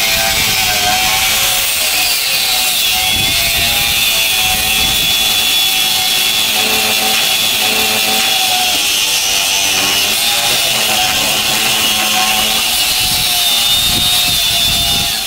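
HL Premier DG 850 4-inch angle grinder cutting through a 25 mm steel bar with a cut-off disc: a steady high whine over grinding hiss, the motor holding its speed under load.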